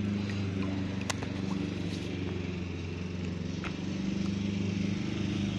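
A steady low engine-like drone with two sharp clicks, about a second in and again past the middle.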